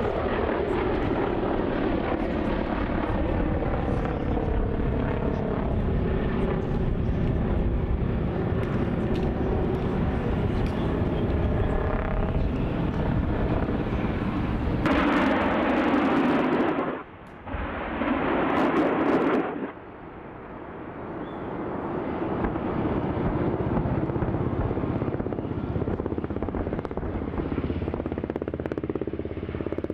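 Military attack helicopter flying past, its turbine and rotor noise sliding down in pitch. About fifteen seconds in, it fires two salvos of unguided rockets, heard as two loud rushing blasts about two seconds each with a brief gap between them. The steady helicopter noise then builds back up.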